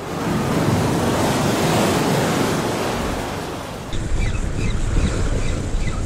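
Sea wave surging and washing in, swelling then fading over about four seconds. After a cut, wind buffets the microphone while a bird chirps repeatedly.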